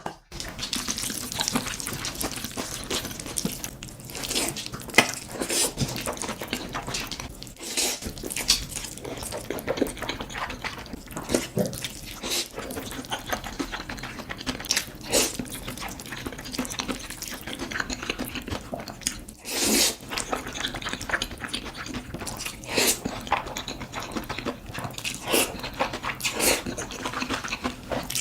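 Close-miked chewing and mouth smacking: an irregular, continuous run of short smacks and clicks.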